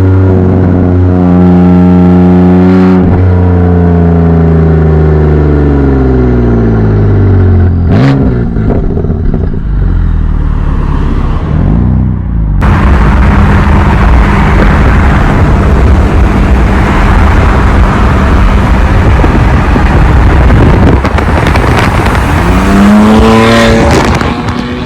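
BMW F80/F82 M3/M4's twin-turbo inline-six running with its exhaust made louder. The engine note falls steadily over the first several seconds, then turns into a loud, rough full exhaust sound about halfway through, and climbs in pitch again near the end before cutting off.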